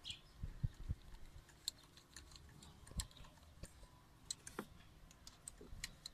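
Faint, irregular clicks and light knocks of a hand screwdriver working the EGR valve fastenings in an engine bay, metal tool tapping and turning against the bolts and nearby parts, with a few louder knocks in the first second and around three seconds in.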